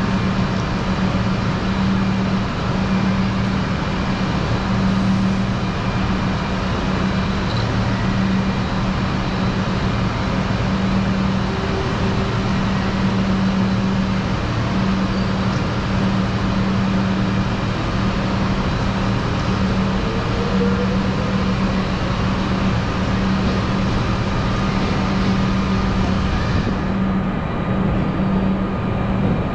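Railway station ambience: a steady low engine hum, like idling vehicles, over a constant background roar.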